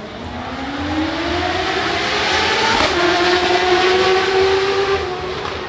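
Racing motorcycle engine accelerating hard past the spectators, its note climbing steadily in pitch and growing louder. There is a brief break near the middle, then the note holds and fades toward the end.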